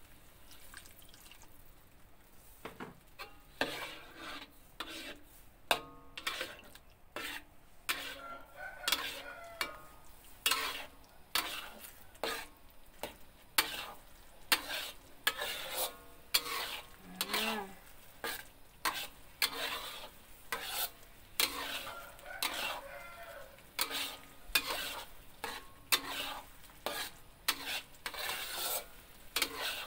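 Metal ladle scraping and knocking against a wok while stirring a simmering sauce that is thickening with tapioca-starch slurry, with a light sizzle. The scrapes and knocks start about three seconds in and come about once or twice a second.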